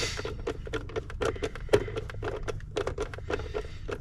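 Quick, irregular clicks and taps of hands working small hardware and parts, several a second, over a low steady hum.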